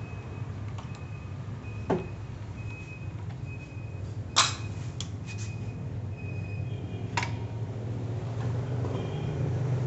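A few sharp clicks and knocks, the loudest about four and a half seconds in, from the drill's power cord and plug being handled at an extension reel, over a steady low background rumble. The drill itself is not running.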